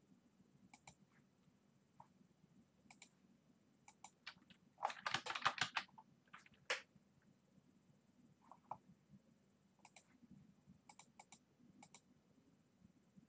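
Computer keyboard typing: a quick run of keystrokes about five seconds in, with scattered single mouse clicks before and after.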